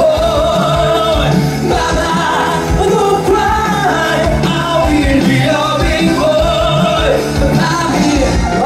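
Male voices singing a musical number into handheld microphones over loud, full musical accompaniment, as heard in a live theatre.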